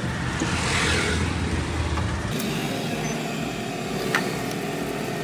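Road traffic passing, a vehicle rumbling by in the first half, then a sharp metallic click of a tool about four seconds in.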